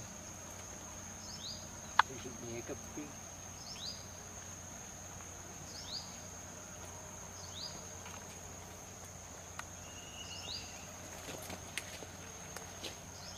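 Forest insects, crickets or cicadas, keeping up a steady high-pitched whine. Short falling chirps repeat every second or two over it, and there is one sharp click about two seconds in.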